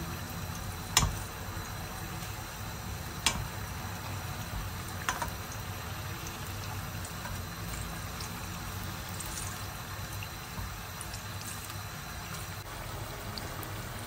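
Rolls of pastry sizzling steadily in hot frying oil. Three sharp clicks in the first five seconds: metal tongs knocking against the pan as the rolls are turned.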